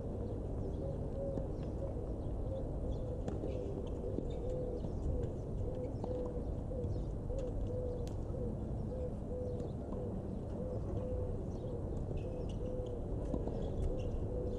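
A bird's short, low note repeated about twice a second, over a steady low rumble, with a few faint scattered knocks.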